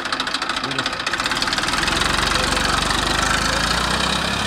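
Massey Ferguson 241 DI tractor's three-cylinder diesel engine running with a rapid, even chug, growing louder and heavier about a second and a half in as the tractor pulls off with a disc harrow under load.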